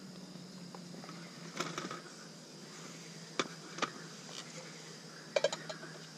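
Metal camp cookware clinking and knocking as a pan is set down on a small folding table and a pot is put on a gas-cartridge camp stove: a few separate knocks, with a quick cluster of clatter near the end. A steady faint hum runs underneath.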